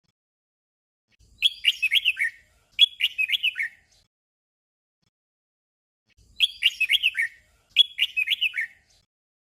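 Red-whiskered bulbul singing a short, simple song phrase twice in quick succession, the 'double' song. About five seconds later it sings the same doubled phrase again.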